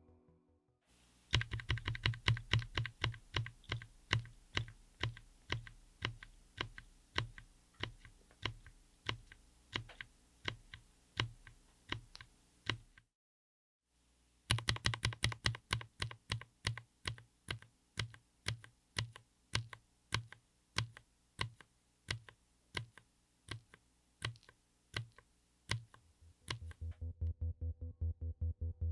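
Mechanical keyboard keys fitted with Gateron Smoothie Mint silent linear switches (full POM), in a Tofu60 aluminium case with an FR4 plate, pressed at an even pace of about two to three strokes a second. The strokes come in two runs with a short break about halfway through.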